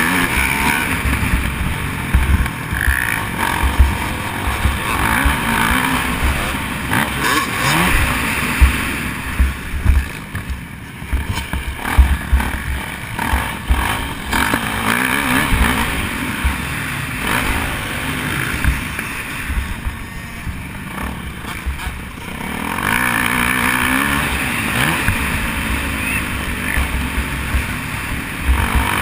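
Motocross dirt bike engine revving up and down as it is ridden around a dirt track, with heavy wind buffeting on an on-board camera microphone and sharp knocks from the bumps.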